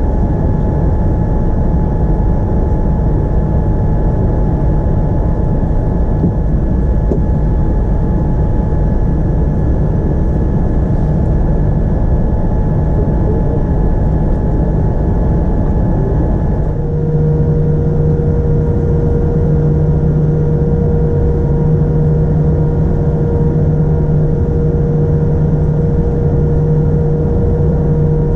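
Boeing 787-9 airliner heard from inside the passenger cabin: a loud, steady rumble with several whining tones on top. About 17 seconds in, the whining tones change abruptly to a different pitch while the rumble carries on.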